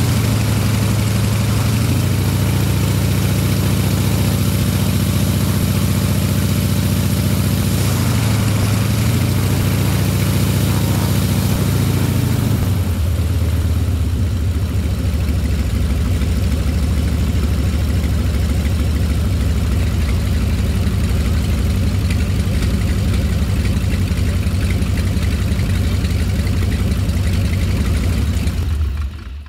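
Vedeneyev M14P nine-cylinder radial aircraft engine running at low power on a ground run, with the cowling off and the propeller turning. Its pitch dips briefly twice and recovers, the note changes about halfway through, and the sound cuts off suddenly near the end.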